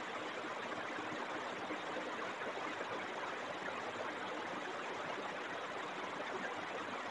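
Steady low hiss of background room noise with a faint hum, no distinct sound events.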